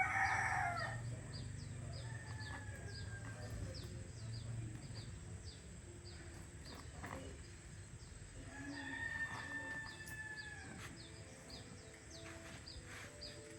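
Bird calls: a loud call ends just under a second in, and two long drawn-out calls follow, one a couple of seconds in and one about nine seconds in. Faint short chirps repeat about twice a second throughout, over a low steady hum.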